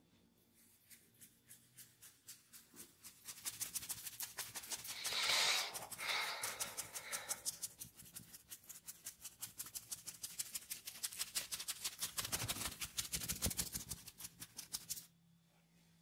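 Fingertips scratching rapidly through curly hair on the scalp: a fast, even run of crisp scratching strokes that begins about three seconds in, swells twice, and stops abruptly near the end.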